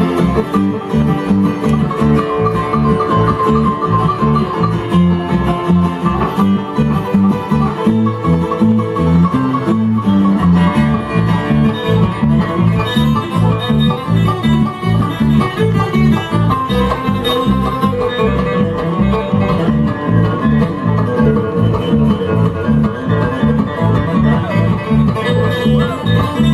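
Bluegrass band playing an instrumental tune live: fast banjo and guitar picking over a steady bass line.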